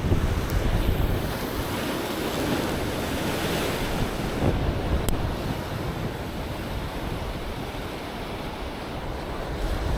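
Ocean surf washing against the shore, with gusty wind rumbling on the microphone.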